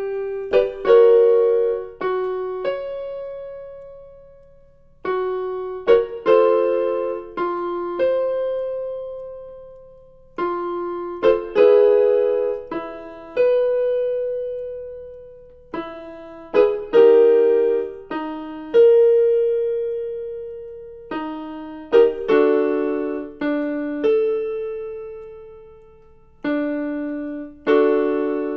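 Piano accompaniment for a belting warm-up exercise: a short figure of struck notes ending on a held, fading note, repeated about every five seconds and moved a step lower each time, with no voice singing.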